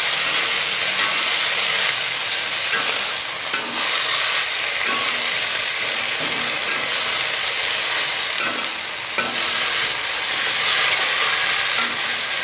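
Brazilian spinach sizzling in oil in a stainless steel wok as it is stir-fried, with a steady hiss and a spatula clicking against the wok every second or so at uneven intervals.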